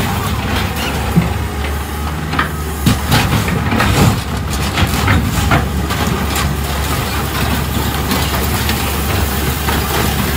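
Diesel engine of a grapple-equipped material-handling excavator running steadily under load, with sharp crunches and creaks of sheet metal as its grapple tears into and lifts a school bus body. The crunches come mostly in the first half.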